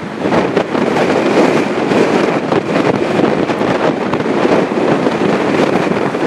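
Strong wind buffeting the microphone: a loud, uneven rushing that rises and falls in gusts.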